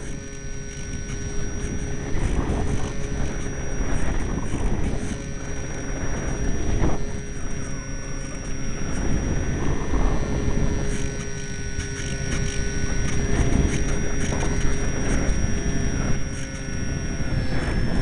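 Strong wind buffeting the microphone in gusts, a low rumble that swells and eases every second or two, over a steady faint high whine.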